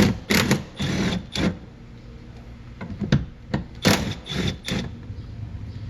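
Cordless power driver spinning in short bursts, backing out the bolts and screws that hold the tailgate trim panel. The bursts come in two runs, one at the start and one about three seconds in.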